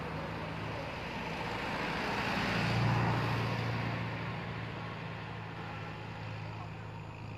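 A motor vehicle's engine hum with road noise, growing louder to a peak about three seconds in and then fading, as a vehicle passes.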